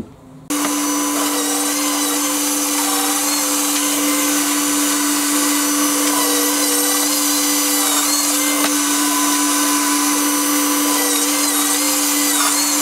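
Bosch bench drill press motor switching on about half a second in and running at a steady pitch while a countersink drill bit bores 6 mm countersunk holes in a hardwood board.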